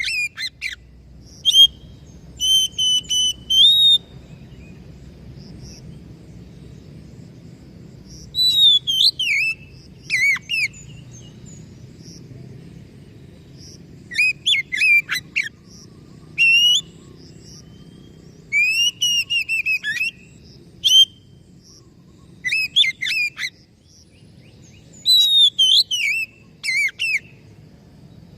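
Oriental magpie-robin singing loud, varied whistled phrases with quick rising and falling slides, in bursts of one to three seconds with pauses between. A faint steady low hum lies underneath.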